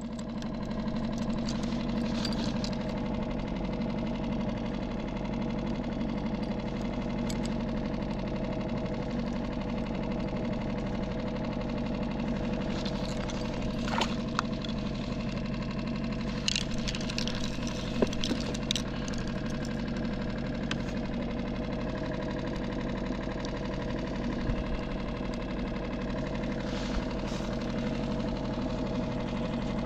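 Small outboard motor on a skiff idling with a steady hum. A few light clicks and knocks sound over it about halfway through.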